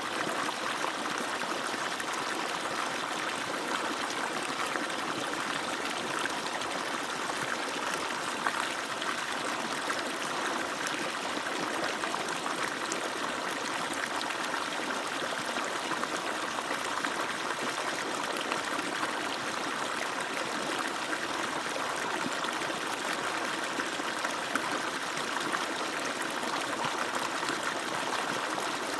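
Water falling steadily from an agricultural pump's outlet and splashing down: a constant, even rush of water.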